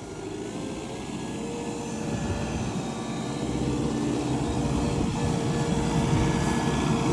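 An engine running steadily, with a constant drone that grows gradually louder.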